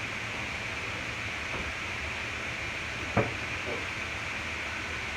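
Crawfish and vegetables sizzling steadily in butter in a pan, with a single sharp knock about three seconds in, like a cup or utensil set down.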